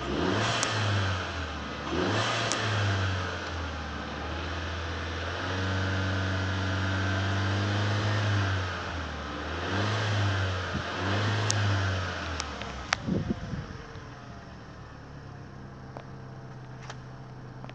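A 2012 Holden Cruze's 1.4-litre turbocharged four-cylinder petrol engine, heard from inside the cabin with the car stationary, revved in several short blips and held at about 3000 rpm for a few seconds. About 13 seconds in it drops back to a steady idle, with a few sharp clicks as it settles.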